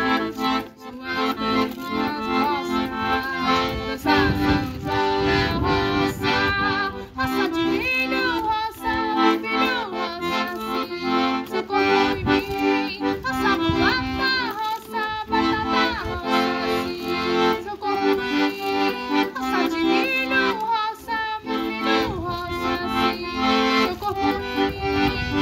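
Accordion-led traditional music playing a lively melody over sustained chords and a steady beat, in the style of the Northeast Brazilian São João songs.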